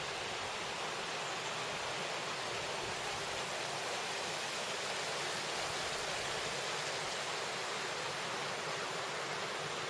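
Steady rush of river water tumbling through a rocky gorge.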